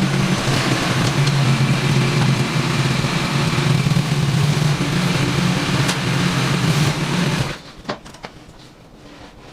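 A three-wheeled motorbike's engine running steadily, then stopping abruptly about seven and a half seconds in. A few faint clicks follow.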